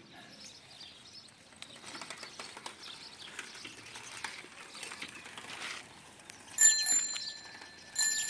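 A bicycle bell rings briefly about six and a half seconds in, then rings again in a rapid trill near the end, over faint outdoor background noise.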